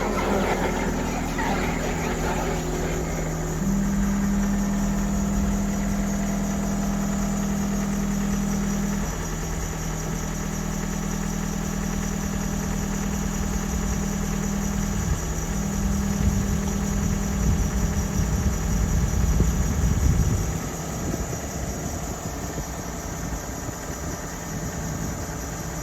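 John Deere 326E skid steer's diesel engine running steadily, its pitch stepping up about three and a half seconds in. A louder, rougher low rumble comes in from about fifteen to twenty seconds, then the engine settles quieter.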